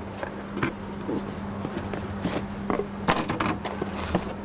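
Handling noise from unpacking a boxed fishing reel: scattered scrapes, rustles and light knocks of packaging, with a quick cluster of knocks about three seconds in, over a steady low hum.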